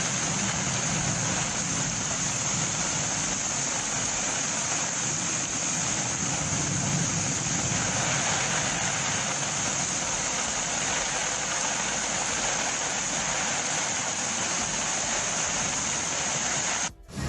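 Steady rushing of heavy rain and floodwater mixed with the low rumble of vehicle engines on a flooded road, with a constant high hiss; it cuts off suddenly near the end.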